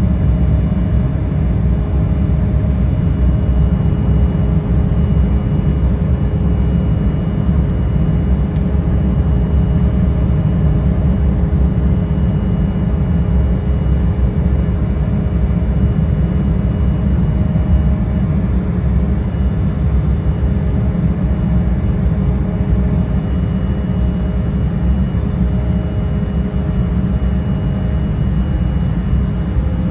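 Embraer E175 cabin noise in climb: a steady, loud rumble from its GE CF34-8E turbofan engines and the airflow, heard from inside the cabin, with a few faint steady whining tones.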